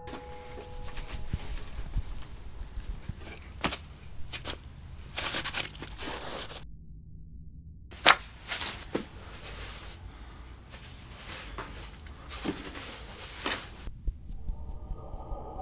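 Rustling and handling noises, like clothes and clutter being moved about, broken by scattered clicks and knocks. The loudest is a sharp knock about eight seconds in.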